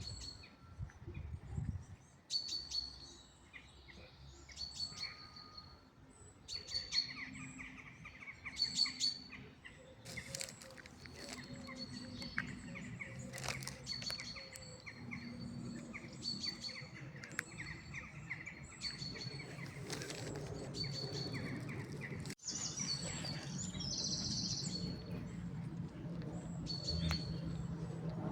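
Birds chirping outdoors: one bird repeats a short high note about once a second, with other bird calls mixed in.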